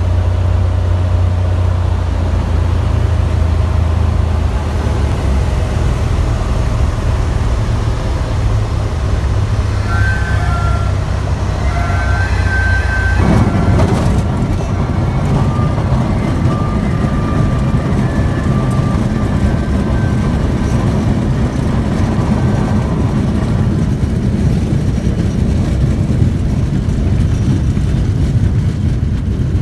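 Cessna 182D's Continental O-470 six-cylinder engine running at low power on final approach, heard from inside the cockpit. About 13 seconds in, the wheels touch down on a dirt airstrip and a rough rolling rumble joins the engine sound for the rollout. Faint high tones come and go in the seconds before touchdown.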